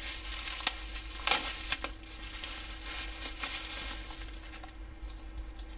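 Bubble wrap crinkling and crackling as it is pulled off a knife by hand, with a few sharper crackles in the first two seconds and softer rustling after.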